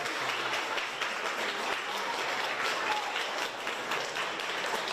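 A crowd applauding steadily, many hands clapping at once, with a few faint voices mixed in.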